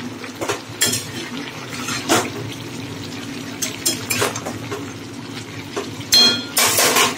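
Spatula stirring vegetables in a metal wok, with irregular scrapes and clinks against the pan, the loudest cluster near the end.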